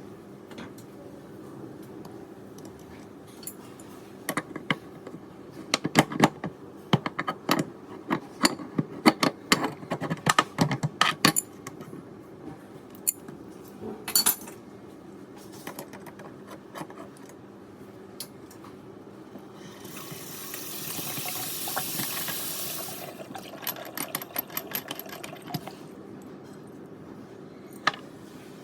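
Water tap running with a steady vibrating hum and, for several seconds, a rapid crackling rattle of sharp clicks, then a louder rush of water lasting about three seconds two-thirds of the way in. It is the vibration and crackling of a tap whose valve washer is probably worn out.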